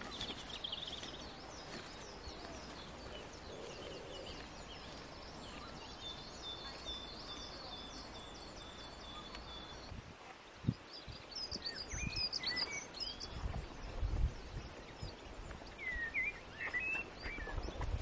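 Small birds singing in scrubland: overlapping chirps and short trills, one bird repeating a single high note evenly for a few seconds in the middle. Irregular low thuds come in over the second half.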